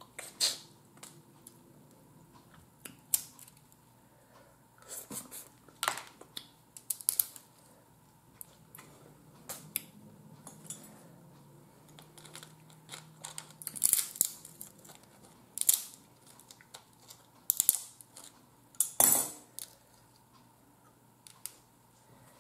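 Boiled blue crab legs and claws being cracked and picked apart by hand: scattered sharp cracks, snaps and crunches of shell, with a few short sucking and chewing sounds as meat is eaten from them.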